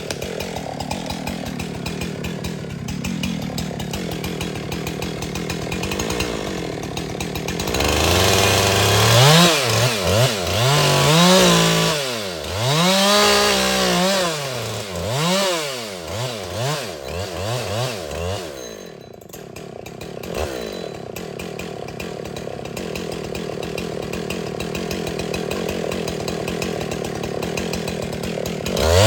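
Husqvarna 372XP two-stroke chainsaw idling, then from about eight seconds in revving up and down over and over for some ten seconds before settling back to a steady idle. It revs up again at the very end.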